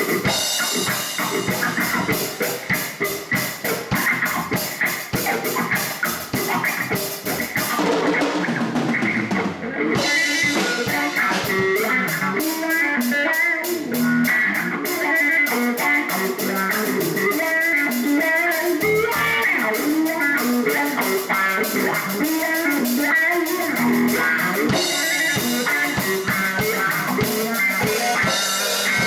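Live blues band playing: electric guitar and electric bass over a Ludwig drum kit with a steady cymbal beat. The cymbals drop out for about two seconds roughly a third of the way in, then come back in.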